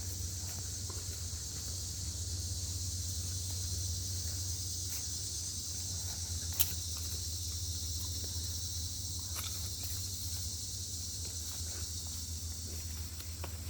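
A steady, high-pitched insect chorus over a low steady rumble, with scattered faint footstep-like clicks and one sharp click about six and a half seconds in.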